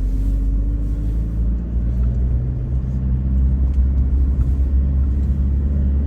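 Four-wheel-drive vehicle driving slowly over a rough, potholed dirt road, heard from inside the cabin: a steady deep rumble of engine and road noise.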